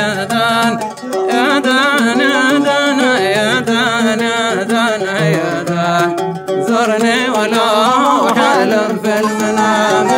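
Hadhrami dan song: a man's voice singing an ornamented, wavering melody, accompanied by an oud.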